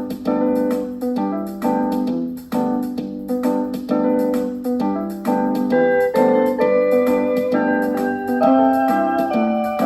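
Piano music played from a vinyl record through a suitcase record player's built-in speaker, with notes struck in steady quick succession.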